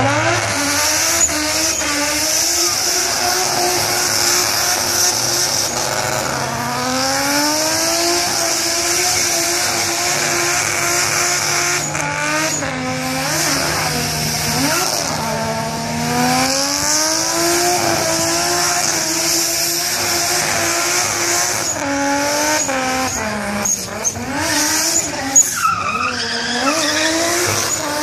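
Nissan R32 Skyline doing a burnout: the engine is held high in the revs, its pitch swinging up and down, while the rear tyres spin and squeal on the pad. A few sharp cracks stand out near the end.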